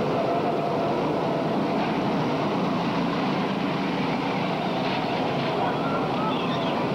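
Go-kart engines running on the track, a steady, noisy drone.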